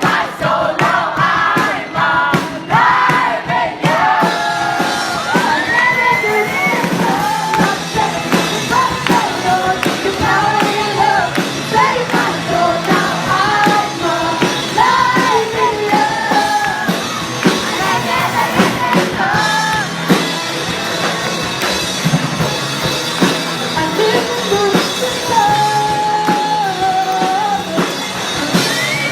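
Live band music with singers, the crowd yelling and shouting along.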